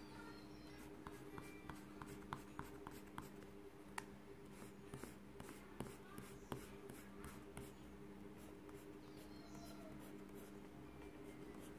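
Coloured pencil scratching on drawing paper in quick short strokes, faint, thinning out toward the end. A steady low hum runs underneath.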